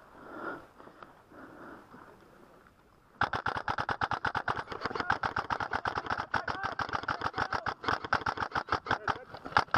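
Rapid, dense clicking that starts abruptly about three seconds in and keeps going: airsoft guns firing in long bursts.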